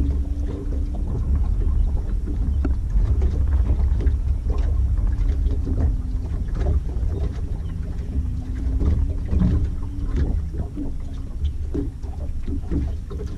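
Steady low rumble of wind and choppy water against an aluminum boat's hull, with scattered small clicks and knocks.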